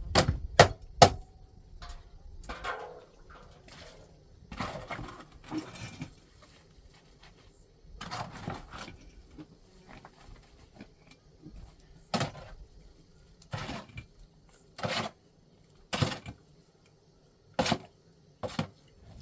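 A run of sharp knocks and clatters: three quick ones in the first second, then single knocks every second or two in the second half, with softer scraping and rustling between them.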